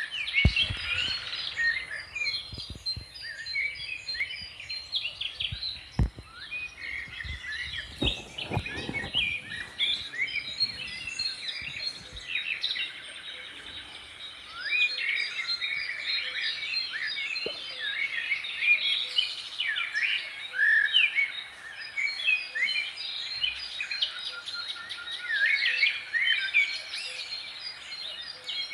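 Many small birds chirping and singing at once, their short calls and trills overlapping densely. A few brief low knocks come around six to nine seconds in.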